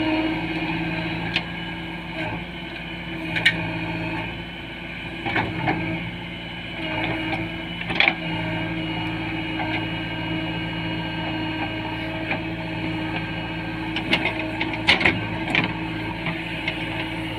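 JCB 3DX backhoe loader's diesel engine running steadily while working, with several sharp metallic knocks and clanks scattered through, most of them near the end.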